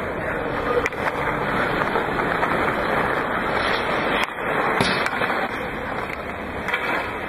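Ice hockey skates scraping on the ice, with a few sharp knocks of pucks being shot and struck, over a steady noisy rink background.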